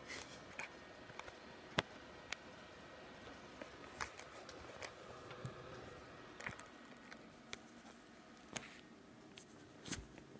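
Old desktop PC running with a low, steady hum and faint whine, broken by irregular sharp clicks and ticks, the weird noises the owner is showing.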